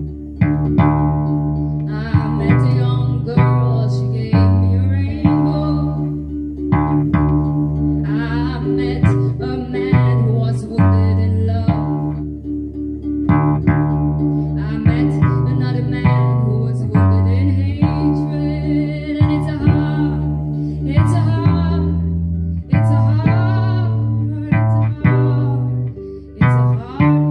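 Octave ukulele tuned like a bass guitar and dropped to D (DADG), plucked in a steady line of low notes and ringing higher strings in the key of D.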